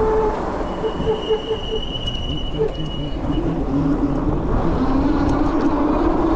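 Road and vehicle noise over a heavy low rumble, with an engine tone that rises and falls in pitch in the second half and a thin high steady tone from about one to three seconds in.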